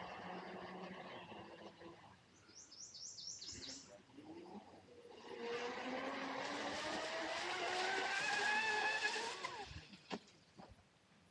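RC speed boat's brushless electric motor (Rocket 3660, 2150 kV, on a 4S battery) whining under a rushing hiss of water. The whine fades at first, then from about halfway it climbs steadily in pitch and loudness as the boat accelerates on a full-throttle pass, and it cuts off abruptly near the end, followed by a single sharp click. A brief run of high chirps is heard early on.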